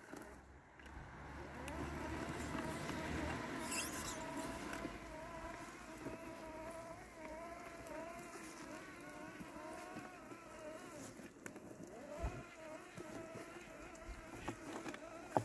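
Landxcape LX790 robotic lawn mower running, its brushless blade motor giving a steady buzzing whine that wavers in pitch as it cuts through tall grass and weeds. There is a low rumble in the first few seconds.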